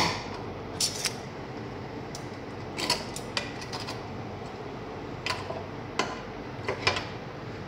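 Stainless steel kitchen tongs clicking and tapping against a nonstick grill pan as chicken pieces are turned: about nine separate sharp clicks, spread unevenly.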